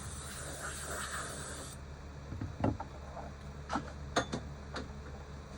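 Compressed air hissing lightly from an air nozzle, cut off suddenly under two seconds in, followed by a few light clicks and taps.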